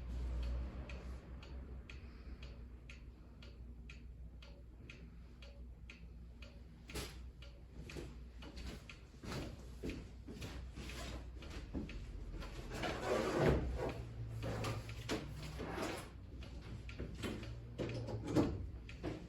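Spring-driven wind-up clock ticking steadily, about two to three ticks a second, with louder knocks and rubbing of the clock being handled around the middle and again near the end.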